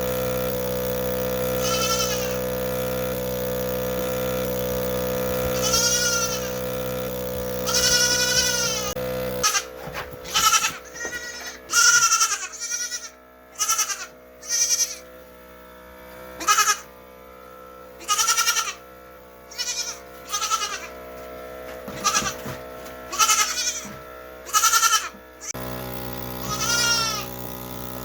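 Goat kids bleating over and over, with quavering calls that come thick and fast in the middle stretch. Under them, the automatic milker's pump motor hums steadily; it cuts out about nine seconds in and comes back near the end.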